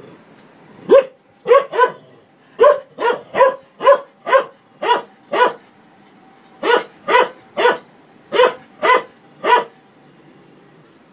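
A large shepherd-type dog barking at a running washing machine: about ten sharp barks a second or so in, a short pause, then about six more, ending a little before the close.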